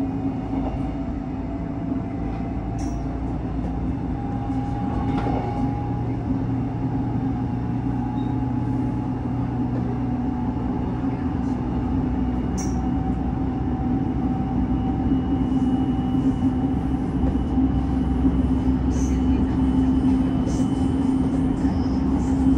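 Interior running noise of an electric commuter train car at speed: a steady low hum over a noisy rumble, growing slightly louder toward the end.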